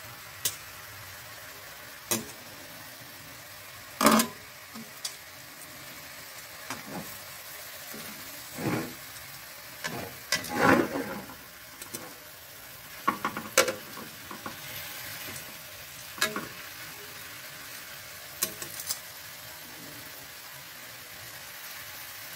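Chicken pieces sizzling in soy sauce in a frying pan, a steady hiss. Over it come scattered clicks and short scrapes of metal tongs against the pan as the pieces are turned, loudest about four seconds in and in a cluster near the middle.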